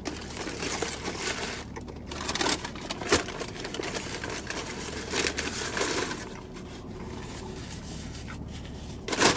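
Paper fast-food sandwich wrapper crinkling and rustling as it is handled and folded back, busiest in the first six seconds, with chewing.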